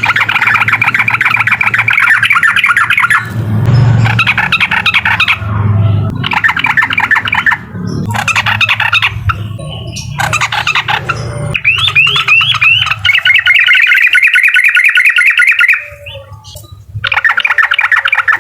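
Yellow-vented bulbul (trucukan) singing its 'uklik' song: long runs of rapid, chattering repeated notes, broken by short pauses, with the longest run starting about twelve seconds in. A low steady hum sits underneath.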